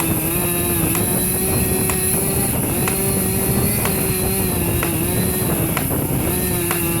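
Two-stroke chainsaw running steadily at high revs, its pitch sagging slightly now and then as it works through the back cut of a large tree being felled. Faint clicks come about once a second, over a steady high hiss.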